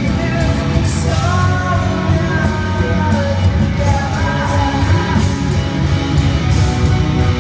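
Live rock band playing at full volume, with drums, bass and electric guitar, and a melodic line sung or played over it.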